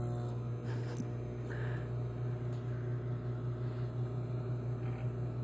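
Microwave oven running with a steady low hum, with a faint click about a second in.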